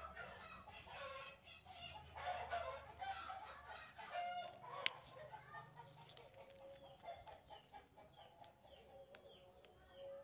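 Short animal calls, like clucking, repeat in the background throughout. About five seconds in there is one sharp click, as steel toenail nippers snap through a thick, crumbly toenail.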